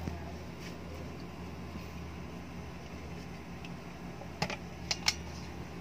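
Light plastic clicks and knocks as a small plastic cup and ladle scoop thick batter and tap against a plastic mixing bowl, with three sharp clicks between about four and a half and five seconds in. A steady low hum runs underneath.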